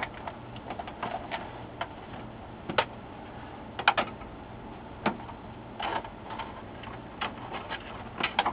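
Irregular light clicks and knocks of hands working the plastic case and cover of an HP LaserJet 4P printer while a cable is fitted back inside.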